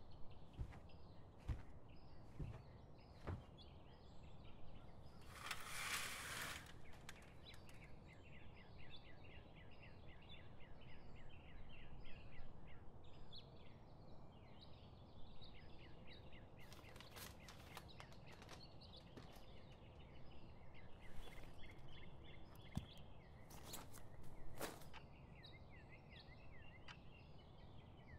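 Faint birds chirping in quick runs of short, high notes over a low steady hiss, with a brief burst of noise about six seconds in and a few sharp clicks later on.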